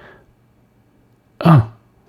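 A man's brief vocal sound, a short grunt-like "hm" falling in pitch, about a second and a half in, after a faint breath at the start.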